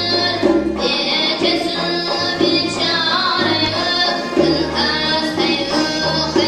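Live Uzbek folk music: a singer with an ensemble of long-necked lutes, accordion and doira frame drum.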